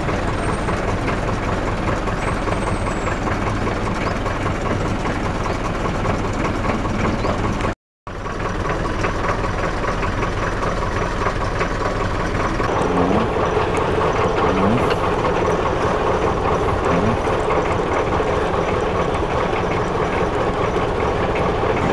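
Motorboat engine running steadily under way, broken by a short cut about eight seconds in; past the middle the engine note changes, the low rumble easing and a steadier, higher hum coming through.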